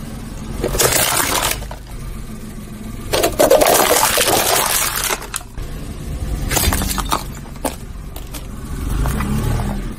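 Hard plastic toy airplane cracking and crunching under a rolling car tyre, in three bursts of breaking, over the low rumble of the car.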